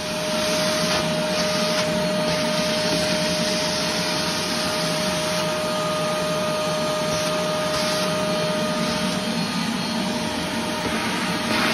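A 5-gallon Vacmaster shop vac comes up to full speed right at the start, then runs steadily with a constant whine over the rush of air as its wand sucks up debris along the floor's edge.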